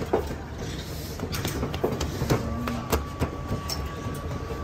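Hands patting and pressing naan dough flat on a board: irregular soft taps and knocks over a steady low rumble.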